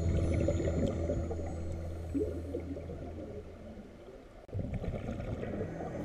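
Muffled underwater water noise, a low, rough gurgling wash picked up through the camera's underwater housing. It sinks gradually, cuts out sharply about four and a half seconds in and returns at once, with background music fading in near the end.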